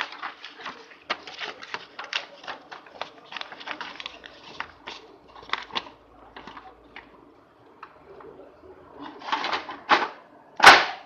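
Paper rustling and irregular plastic clicks as sheets of paper are handled and loaded into a Xerox 3140 laser printer. Near the end come a few louder rustles, then a sharp knock.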